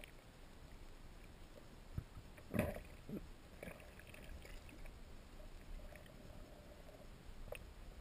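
Muffled underwater sound picked up through a camera housing: faint, steady water noise, with a short muffled burst about two and a half seconds in and a few faint clicks.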